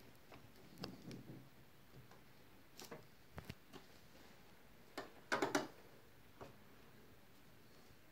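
Faint, scattered clicks and taps of a hand screwdriver and screws against the plastic TV stand bracket as screws are driven in by hand. A short cluster of louder clicks comes a little past halfway.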